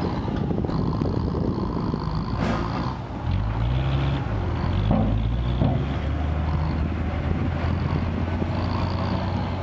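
Ten-wheel dump truck's diesel engine pulling across loose dirt; its note climbs about three seconds in, dips and rises again, then runs steady.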